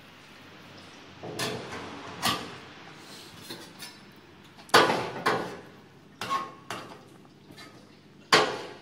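Metal künefe pan knocking and clinking against the stove as it is turned over a low flame. About seven separate knocks ring briefly, the loudest about halfway through and one near the end.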